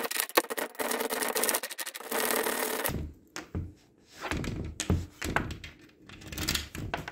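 A metal key worked rapidly in and out of a sticking almirah lock freshly sprayed with WD-40, clicking and scraping inside the lock for about three seconds. After that come scattered soft knocks and rubs as the key is wiped with a cloth and pushed back in.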